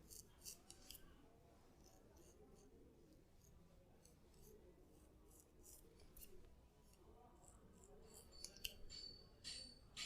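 Barber's blade cutting beard hair: a faint run of short, crisp cutting strokes. A thin metallic ringing joins about eight and a half seconds in.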